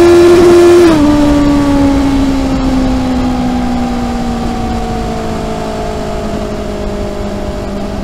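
Honda CB650R's inline-four on its stock exhaust, heard from under the seat. It holds a steady high-revving note for about a second, then the throttle closes and the note falls slowly and evenly as the bike slows, growing quieter.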